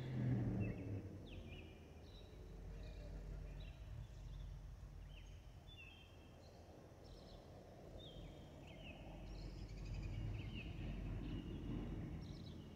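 Repeated short, falling bird chirps over a faint, steady low rumble from an approaching Boeing 717 airliner's jet engines.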